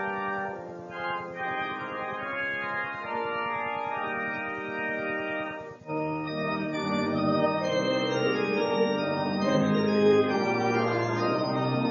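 Church organ playing a hymn accompaniment in slow, held chords. About six seconds in it breaks off briefly and returns louder and fuller.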